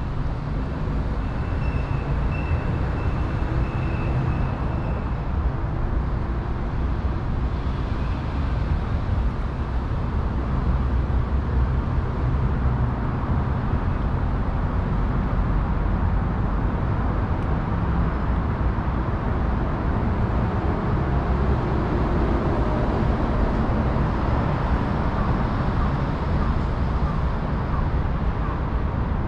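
Steady rumble of city traffic, with a faint thin high tone for a few seconds near the start.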